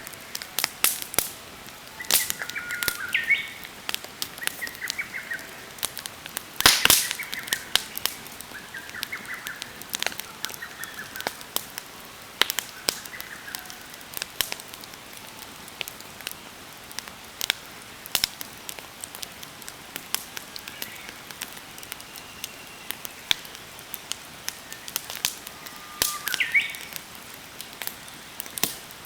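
Wood campfire crackling and popping in irregular sharp snaps, with one louder pop about seven seconds in. Birds chirp in short calls now and then, most clearly early on and again near the end.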